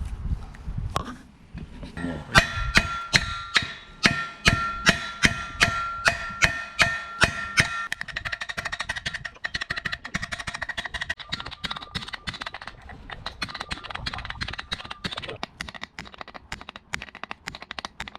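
Metal being struck with a hammer, about three blows a second, each blow ringing at the same pitch. From about eight seconds in it gives way to quicker, lighter tapping.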